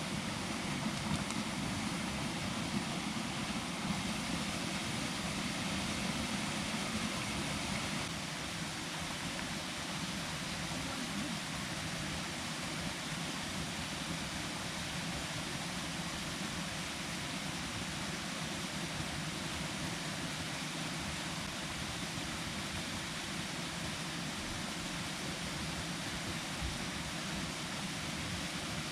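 Plunge waterfall pouring into its pool: a steady rushing noise, dropping slightly after about eight seconds.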